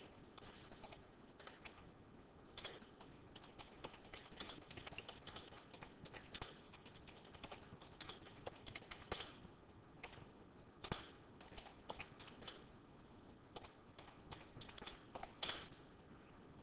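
Faint, irregular clicking and tapping, several small clicks a second with a few louder ones, over a quiet steady hiss.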